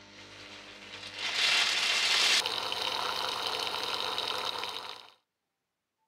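High-speed blender motor spinning up and blending hazelnuts and cashews into a chocolate spread. It builds to its loudest about a second and a half in, turns abruptly quieter and steadier about two and a half seconds in, and cuts off about five seconds in.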